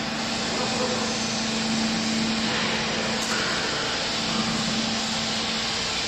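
Hydraulic baling press running: its electric motor and hydraulic pump give a steady hum with an even mechanical hiss over it.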